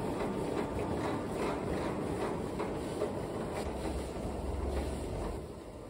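Gym cardio machine running, with a steady mechanical whirr and a regular stride beat a little more than once a second; it quietens near the end.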